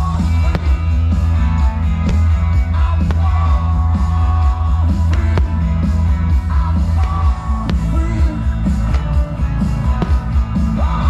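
Loud rock music with a sung vocal and a heavy, steady bass line.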